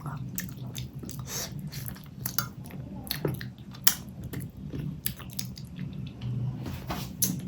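Close-up chewing and wet mouth sounds of someone eating rice with fish curry, with scattered sharp clicks and smacks.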